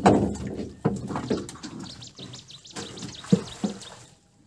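Sharp knocks and thumps on a wooden boat, the loudest at the very start, with rustling of leafy branches in between; it goes quiet near the end.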